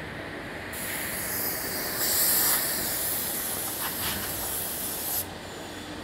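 A hiss of compressed air from the Raimann multi-rip saw line's pneumatics. It starts abruptly just under a second in, is loudest around two seconds in, and cuts off sharply about five seconds in.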